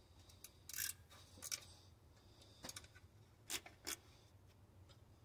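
Hand ratchet clicking in about five short, faint bursts, spaced irregularly, as bolts on an engine's timing cover are backed out.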